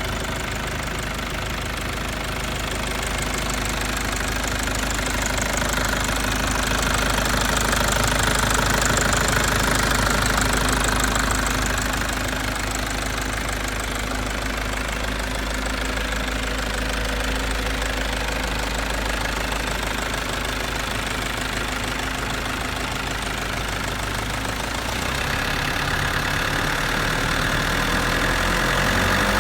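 Mitsubishi 4DR5-series four-cylinder turbo diesel in a J53 Jeep idling steadily after a cold-free, instant start.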